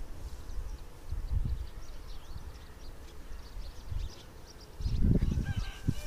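Outdoor wind rumbling on the microphone in gusts, loudest about five seconds in, over faint, rapid high-pitched chirping of small birds in the background.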